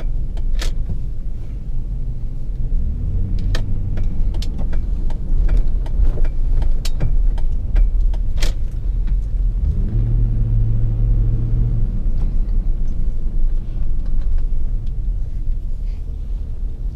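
Car in motion heard from inside the cabin: steady low road and engine rumble, with the engine note climbing about three seconds in and again about ten seconds in as the car gathers speed. A few scattered clicks.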